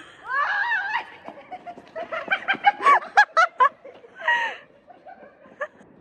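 A high squeal, then a quick run of laughter, with another short vocal cry after it.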